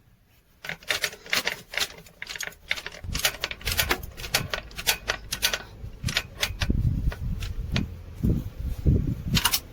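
Hand tools clicking and clinking on metal, several irregular sharp clicks a second, while a replacement starter motor is bolted onto a Mercedes-Benz Actros truck engine, with a low rumble joining about three seconds in.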